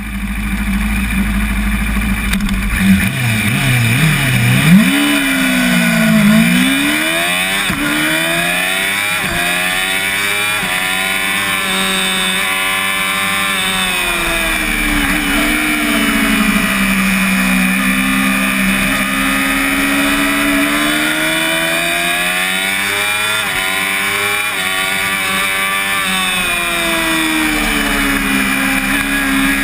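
Yamaha YZF-R6 (5EB) inline-four sports bike engine heard onboard at a race start: held at steady revs for a couple of seconds, then launching and revving up through the gears with quick shifts, after which the engine note rises and falls under hard acceleration and braking, over wind rush.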